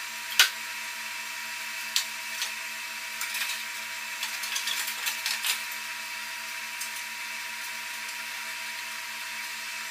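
Clicks and taps of hand work on the Jeep CJ7's front fender sheet metal: one sharp click about half a second in, another near two seconds, then a run of scattered clicking for a couple of seconds, all over a steady background tone.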